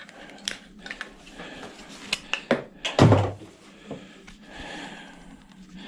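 Scattered clicks, knocks and clatter of ice-maker parts, plastic and metal, being handled and pulled apart, with the loudest thud about three seconds in.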